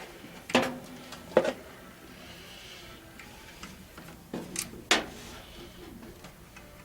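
A few sharp clicks and small knocks from hand work on an electric furnace contactor, as the coil wires are connected to its terminals: two clicks, then a cluster of three a few seconds later.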